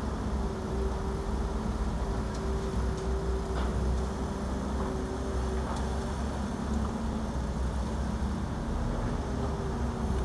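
Diesel construction machinery running steadily as an excavator digs and swings its boom, with a bulldozer running close by: a continuous engine drone with a deep rumble and a steady hum, and a few faint clanks.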